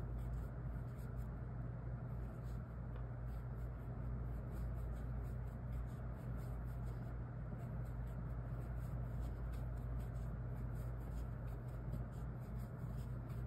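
Faint rubbing and scratching of yarn against a crochet hook as single crochet stitches are worked into a magic circle, over a steady low hum.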